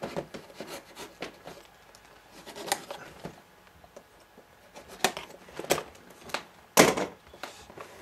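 Folding pocket knife cutting the seals on a cardboard box, with scratchy scrapes and clicks of the blade and the box being handled. The loudest sound is a sharp thump or snap near the end.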